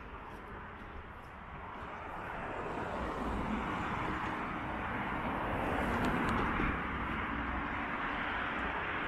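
Road traffic: the rush of car tyres and engines on asphalt, swelling over the first few seconds as a car passes close, then holding as a steady roar.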